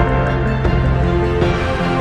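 Background music: held chords over a steady bass line, changing chord at the start and again near the end.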